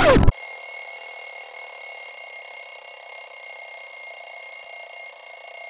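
Alarm clock ringing steadily and continuously, starting abruptly just after a brief falling tone.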